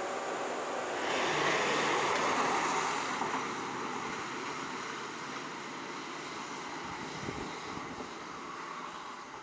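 A vehicle passing by: a rush of noise that swells about a second in and fades away over several seconds.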